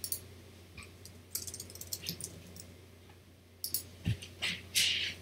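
Computer keyboard keys clicking in short irregular runs, with a few mouse clicks, as a file name is typed. A single low knock comes about four seconds in, and a louder brief rustle near the end.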